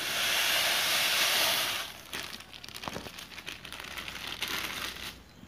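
Granulated white sugar pouring from a plastic bag into a bowl of beaten eggs: a steady hiss that stops about two seconds in, followed by quieter rustling and light clicks.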